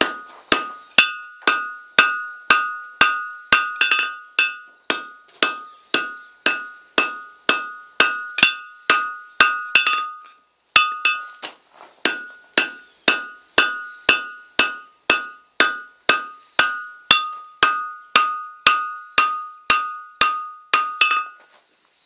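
Hand hammer striking red-hot steel on the edge of an anvil in steady blows, about two or three a second, each leaving a bright ringing tone. There is a short break about ten seconds in. The smith is driving the upset end of an auger bit blank down over the anvil's edge to form a flange.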